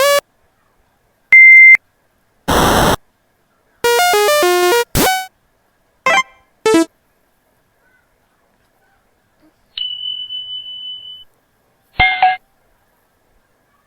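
A string of short electronic video-game sound effects played one after another with brief gaps: a steady beep, a burst of noise, quick stepped note runs ending in a rising sweep, two short blips, a held high beep about ten seconds in, and a short chime near the end.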